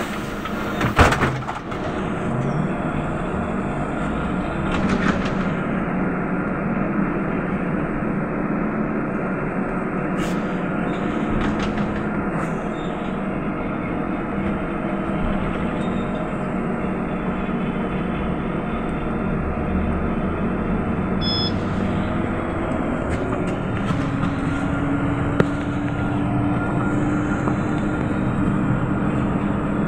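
Inside a Trolza-5275.05 Optima trolleybus: a loud clatter about a second in as the doors close, then steady running noise with the hum of the electric traction drive as it travels. Over the last few seconds a motor whine rises slightly in pitch as it picks up speed.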